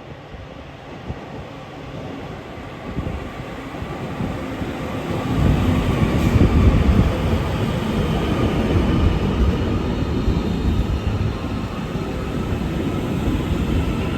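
A train approaching along the platform line, growing louder over the first five seconds and then running past with a loud, steady rumble. A faint higher whine runs through the later part.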